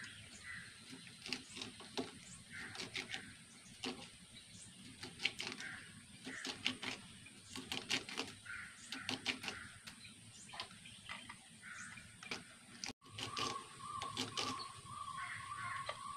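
A small knife cutting through crisp winged bean pods held in the hand: a run of short irregular snapping cuts. Birds call now and then in the background, and a faint steady tone starts near the end.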